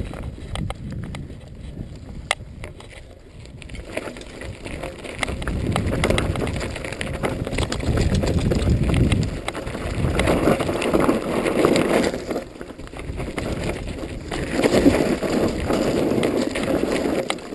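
Hardtail mountain bike riding down rough dirt singletrack: knobby 26x2.5 Continental Mountain King tyres rolling over dirt and grass, with the bike rattling and clicking over bumps and a noisy rush of wind on the microphone. It gets louder from about four seconds in as the bike picks up speed, and surges twice more near the middle and toward the end.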